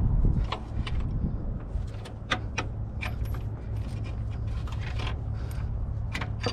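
Metal tools and bolts clinking and tapping in scattered sharp clicks while an alternator is unbolted from a truck engine, over a steady low rumble.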